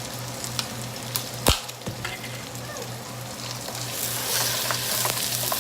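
Garlic, ginger and onions sizzling in hot oil in a pan over high heat, stirred with a utensil that knocks sharply against the pan about a second and a half in. The sizzle grows louder about four seconds in.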